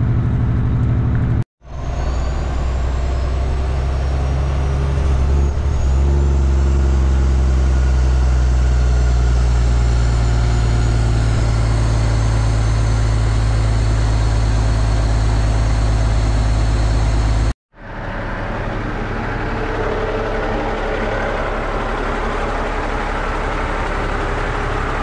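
Heavy truck's diesel engine running with a steady, loud low drone. The sound cuts off abruptly twice, about a second and a half in and near 18 seconds; after the second break it comes back quieter and rougher.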